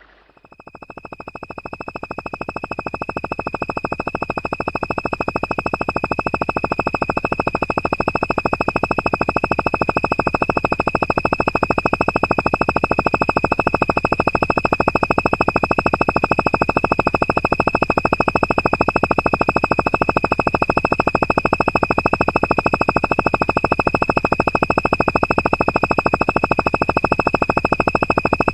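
Flying Nimbus flight sound effect from Dragon Ball: a synthesized electronic hum with a fast buzzing pulse and a steady high whine. It swells in over the first few seconds, then holds steady.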